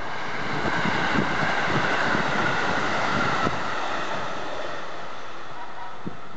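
A train passing over the level crossing: a broad running noise that swells about half a second in, holds for roughly three seconds with a slightly falling hum, then eases off.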